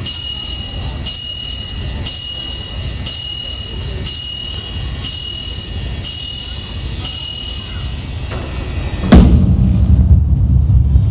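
Steady high-pitched ringing tones with a faint regular pulse, then about nine seconds in a sudden loud boom that carries on as a heavy, deep rumble as an outdoor fireworks show opens.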